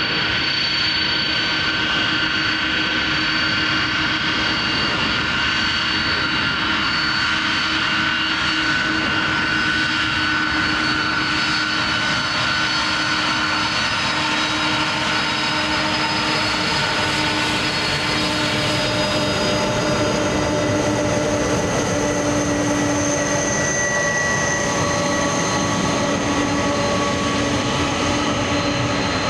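Twin jet engines of a Boeing 767-300ER airliner running in a steady roar with a high whine, as the aircraft rolls along close by after landing. The whine's tones shift as it goes past, with new higher tones coming in about two-thirds of the way through.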